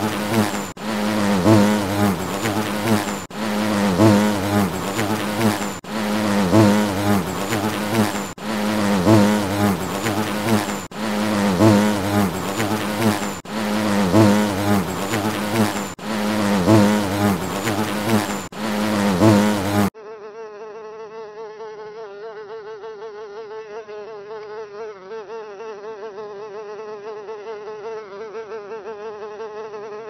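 Looped insect-buzz sound effect: a loud, low bee buzz that repeats about every two and a half seconds. About two-thirds of the way through it cuts off abruptly and gives way to a quieter, higher, wavering buzz.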